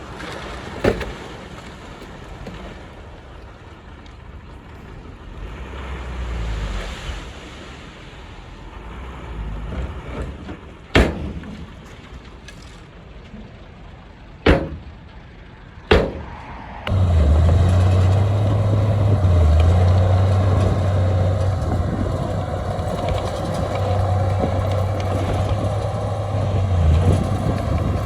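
Heavy diesel machinery running. Its outdoor noise is faint at first, with a few sharp clicks. Just past halfway it turns suddenly to a loud, steady, close diesel engine with a low hum.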